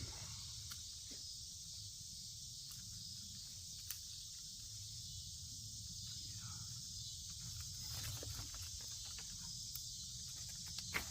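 Steady high-pitched chorus of insects, with a few scattered sharp clicks.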